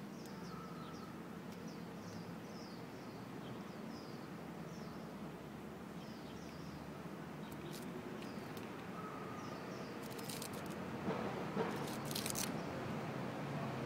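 Small birds chirping in short, repeated high chirps over steady low background noise of the street. A cluster of sharp clicks comes about ten to twelve seconds in.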